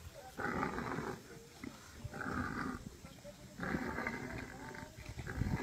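An animal calling in four separate bursts, each under a second long, about a second and a half apart.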